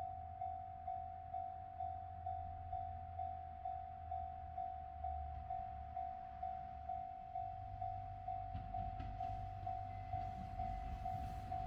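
Japanese railway level crossing warning bell ringing steadily at about two strokes a second. From about two-thirds of the way in, the low rumble of an approaching Dosan Line train grows louder beneath it.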